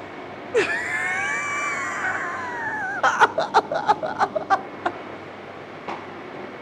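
A high, wavering squeal lasting about two and a half seconds, then a man laughing hard in short bursts, about four a second.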